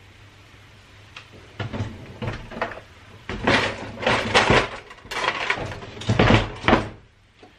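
Kitchen items being handled and knocked about: a run of irregular clatters and knocks that starts about a second in, gets busier and louder from about three seconds, and stops shortly before the end.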